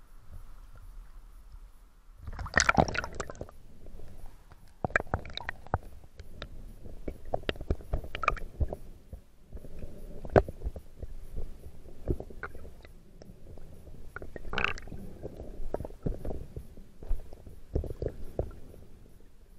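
Muffled water sounds through an action camera's waterproof housing: a loud rush of water and bubbles about two seconds in as the camera goes under the surface, then underwater crackling with scattered clicks and knocks and another short rush of bubbles past the middle.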